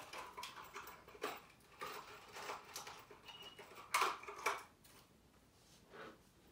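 Small objects being handled by hand: a run of light clicks, rattles and rustles, loudest about four seconds in.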